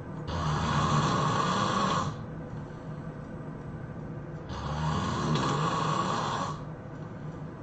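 A person snoring hard: two long snores about four seconds apart, each lasting about two seconds with a low rattle, and quieter stretches between.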